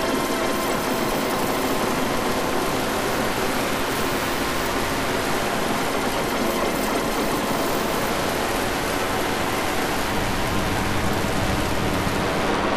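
Electronic drone-ambient noise music: a dense, steady, machine-like wash of noise with a few faint held tones running through it. Near the end the hiss at the top falls away.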